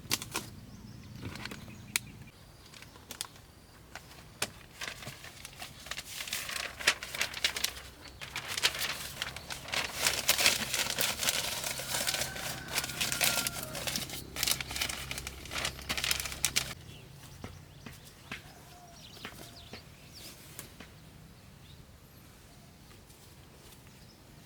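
Rustling and crinkling handling noise with many small clicks, loudest from about six to sixteen seconds in, then dying down to scattered ticks.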